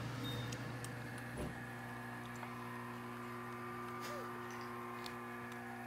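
A machine's steady low hum, holding one pitch with several overtones, with a few faint clicks over it.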